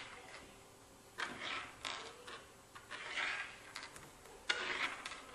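Small beads set down and slid about on a wooden tabletop: a few light clicks, each followed by a short scratchy rub, spaced about a second apart.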